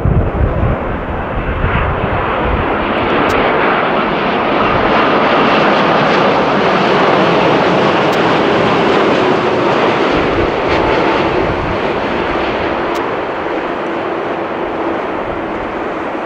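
Airliner engines roaring as a plane passes close by, swelling to a peak about halfway through and then slowly easing off, with a faint whine that drops in pitch as it goes.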